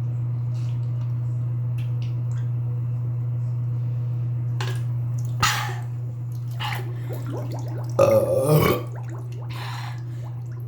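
A person burping: smaller sounds from about five seconds in, then one loud, big burp about eight seconds in. A steady low hum runs underneath.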